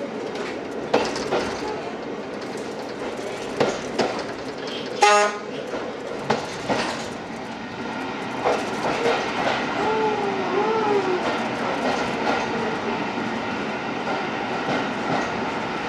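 Train coach running on jointed track, wheels clicking over the rail joints, with the running noise carried on into a tunnel. A short horn toot sounds about five seconds in.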